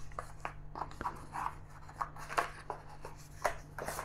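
Cardboard stylus packaging being handled: the inner tray slid from its paper sleeve and the pen lifted out, a run of short, irregular rustles and scrapes.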